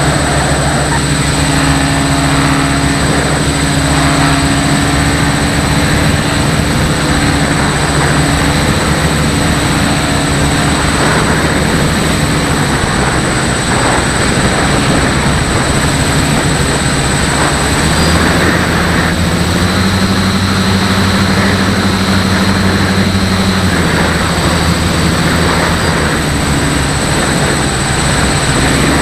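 Radio-controlled model airplane's motor and propeller running under heavy wind noise on the microphone. The motor's pitch steps up about 18 seconds in and drops back about six seconds later, and a thin high whine sits over it all.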